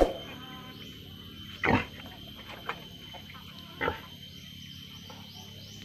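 Breeding boar grunting: about four short grunts, the loudest nearly two seconds in.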